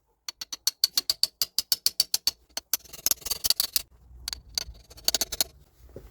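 Ratchet wrench clicking quickly, about nine clicks a second for two seconds, then a rougher rattle and another short run of clicks.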